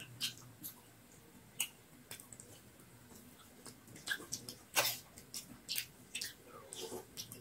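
Raw rice grains crunched while chewing, with metal spoons clicking and scraping on steel plates: irregular sharp crunches and clicks, the loudest about five seconds in.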